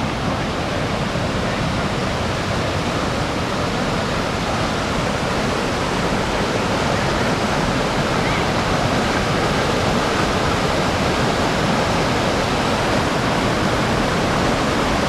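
Mountain river in flash flood, fast muddy water rushing, very loud and steady.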